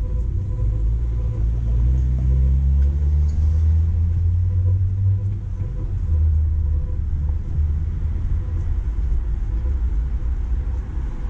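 Street traffic rumbling close by, with one vehicle's engine rising in pitch as it pulls away a couple of seconds in.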